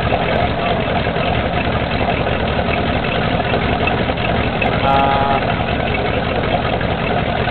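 Marine Power V8 inboard engine in a Glen-L Gentry boat idling steadily, its water-cooled exhaust blowing out through the transom outlets. It stays at idle because the engine computer is giving no throttle control.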